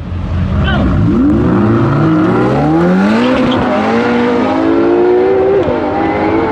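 A LaFerrari V12 hybrid and a Ferrari 488 Pista Spider V8 launching together from a standing start, engines revving hard as they pull away. Their pitch climbs, falls back at each upshift and climbs again.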